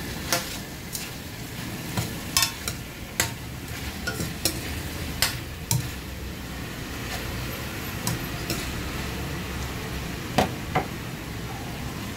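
Chicken pieces sizzling steadily as they fry in a stainless steel wok, stirred with a metal ladle and turner. Sharp clanks and scrapes of the metal utensil against the wok come through the first half and twice more near the end.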